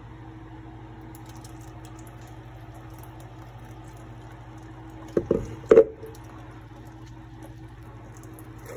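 Thick red chile sauce pouring and squishing from a glass blender jar into a metal strainer over a low, steady hum. A little past halfway the jar knocks sharply against the strainer three times in quick succession.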